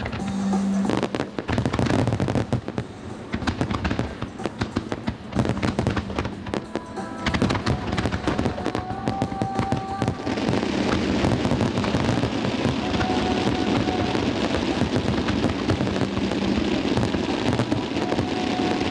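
Fireworks display: a rapid series of sharp bangs and cracks from bursting shells, then from about ten seconds in a dense, unbroken crackling rush as a large barrage fires at once.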